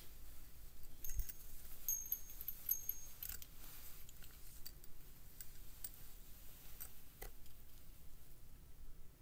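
Proxxon 43-tooth 3/8-inch-drive ratchet wrench clicking as its head is worked back and forth, the pawl ticking over the fine gear teeth in irregular runs of light metallic clicks.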